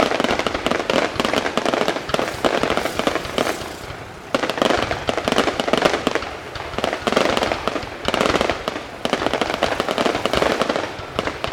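Fireworks display: dense, rapid bangs and crackles overlapping one another, easing off briefly about four seconds in, then starting again abruptly.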